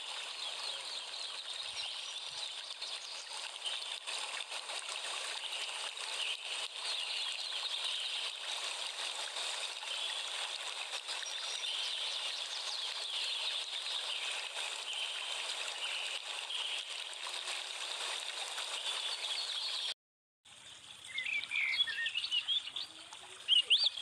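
A dense outdoor chorus of many small birds chirping over a steady hiss. The sound drops out briefly about 20 seconds in, then returns as a few louder, separate chirps.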